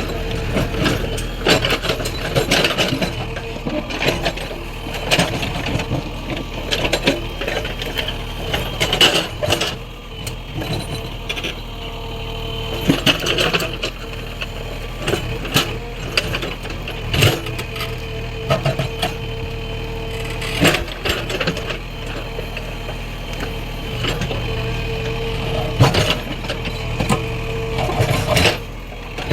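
JCB 3DX backhoe loader's diesel engine running under load with a steady hydraulic whine. Irregular knocks and scrapes come from the bucket digging into stone.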